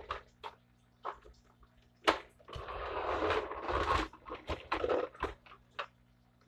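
Handling noises: a few light clicks and knocks, a sharp knock about two seconds in, then about a second and a half of rustling, followed by another run of clicks and knocks.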